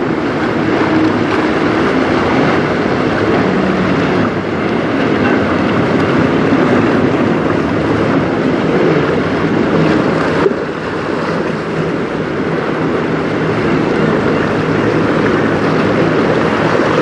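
Steady wind noise on the microphone over choppy river water, with a low engine drone underneath. The level drops slightly at a sudden break about ten seconds in.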